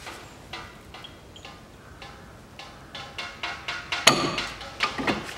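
A screwdriver levering inside a Mitsubishi Colt's front brake caliper to press the pads and piston back: a series of metal clicks and clinks with a short ring, the loudest cluster about four seconds in.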